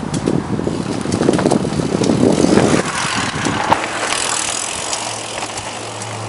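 Mountain bike rolling over a dirt trail, its tyres and frame rattling over the bumps with many small knocks. A low steady hum joins about three seconds in.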